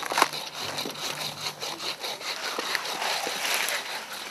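Hand saw cutting through a small tree trunk in quick, rhythmic back-and-forth strokes, about three to four a second.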